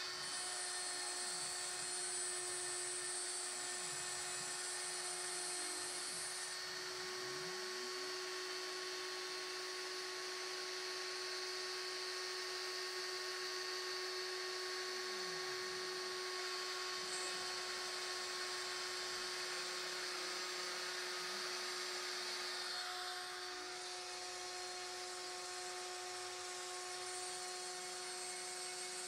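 Proxxon spindle on a homemade gantry CNC router milling a wooden board: a steady high-pitched whine. Some of its higher tones switch on and off about 6 seconds in and again about 23 seconds in as the machine moves.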